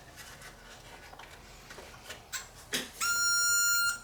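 Power Probe circuit tester giving a steady high electronic beep for about a second near the end, after a couple of light clicks. The tester is being used to power a repaired LED daytime running light.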